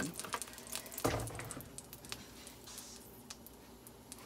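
Butter melting in a little hot oil in a cast-iron skillet, sizzling with scattered faint crackles and pops, heating up for searing. A single louder knock about a second in.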